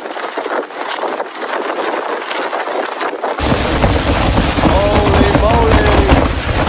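Storm wind and rain hissing steadily. About three seconds in, heavy gusts start battering the microphone with a deep rumble, and a few wavering tones come through the noise in the middle.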